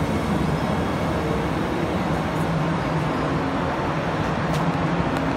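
SNCF Régio2N double-deck electric multiple unit pulling in along the platform: a steady rumble of wheels and running gear with a low hum.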